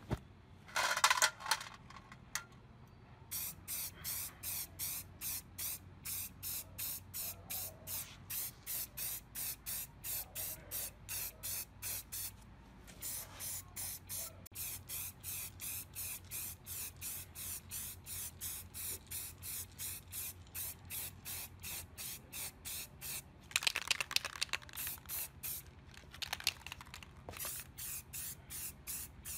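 Aerosol spray-paint can spraying in quick short bursts, about four a second, with a brief pause partway and louder, longer hisses near the end. A short loud rush of noise comes about a second in.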